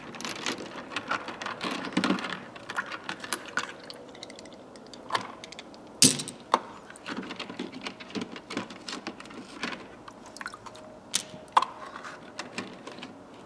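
Craftsman chrome steel sockets clinking and rattling against each other as they are handled and set down one after another, with sharper metal clinks about 6 and 11 seconds in.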